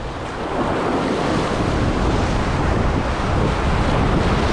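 Rough sea surf washing and breaking close by, with strong wind buffeting the microphone. The noise stays steady throughout, heaviest in the low rumble.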